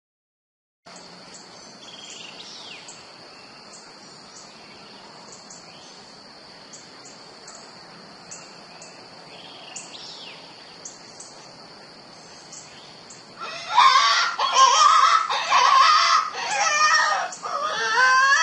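Woods background with a steady high hum and a few bird chirps. About 13 seconds in, a coyote hunting call played from a cell phone app begins: loud, wavering animal cries that break off and restart.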